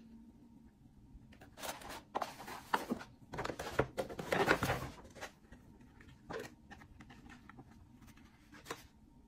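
Paper packaging being handled: a stiff paper shopping bag and cardboard boxes rustling and crinkling, in a run of bursts loudest about three to five seconds in, followed by a couple of light taps.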